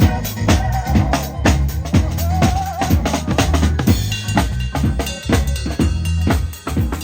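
Music with a drum kit and a deep bass line, playing a steady beat of about three to four drum hits a second with a melody line above.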